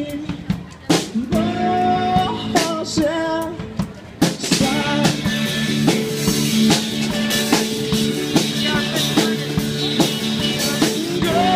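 A song with singing, guitar and drums; the drums settle into a steady beat a few seconds in.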